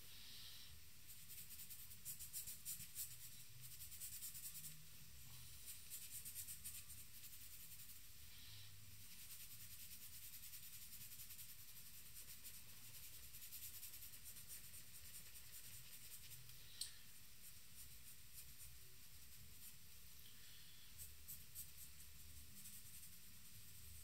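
Charcoal pencil scratching faintly across paper in spells of short shading strokes, with pauses between. A single sharp tick comes about two-thirds of the way through.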